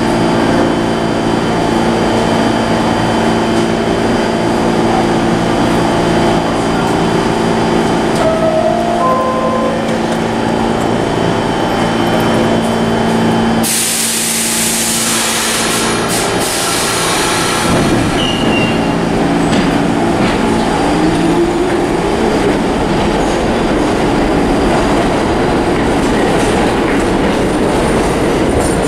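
New York City R46 subway train standing at a platform with a steady electrical hum. About halfway through, there is a loud hiss of air from its brakes. It then pulls out, its motors whining up in pitch and its wheels rumbling and clattering as it gathers speed.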